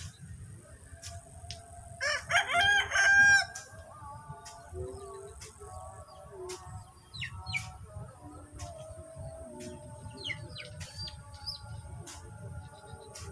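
A rooster crows once, loudly, about two seconds in. Small birds chirp a few times later over a steady high-pitched hiss, with sharp faint ticks roughly once a second.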